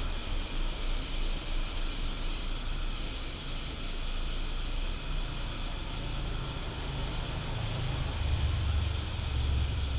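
Brass Anchor 500 candlepower pressure lantern burning with its valve turned up full, giving a steady hissing roar. A deeper rumble swells in the last few seconds.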